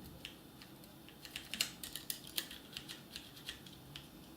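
Keys of a Turtle Beach Impact 700 mechanical keyboard with Cherry MX Brown switches being pressed as they are tested, a few scattered clicks and then an uneven run of them in the middle.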